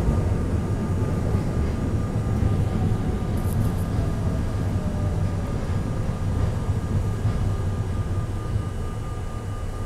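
R32 subway car running on the rails, heard from inside the car: a steady low rumble of wheels and running gear, with a faint whine that slowly falls in pitch. The noise eases off slightly near the end.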